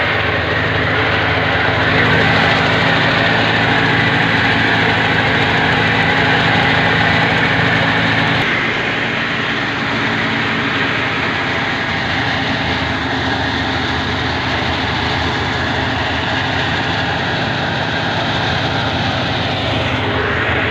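Tractor-driven crop thresher running steadily, the tractor's engine and the threshing machinery making a continuous mechanical drone. The low hum shifts abruptly about eight seconds in.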